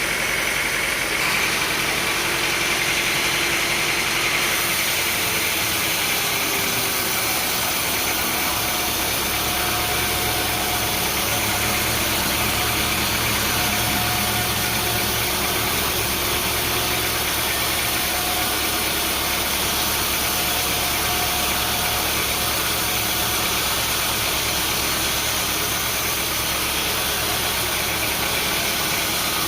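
Engine-driven sawmill machinery running steadily, a constant loud mechanical noise. A thin high tone fades out in the first few seconds.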